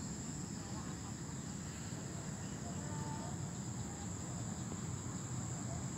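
Crickets trilling steadily in one continuous high-pitched drone, over a low steady rumble.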